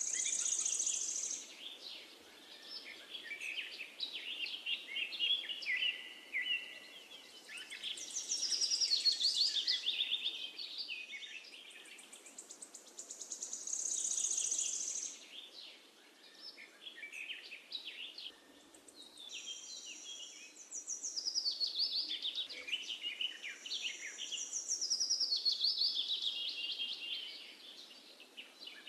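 Songbirds singing: high chirps and trilling phrases that slide downward in pitch, coming back every few seconds.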